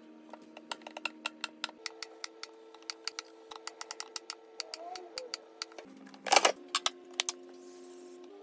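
Knife slicing a banana on an end-grain wooden cutting board: a quick, irregular run of sharp taps of the blade on the wood, with a louder clatter about six seconds in. Soft background music with sustained chords plays underneath.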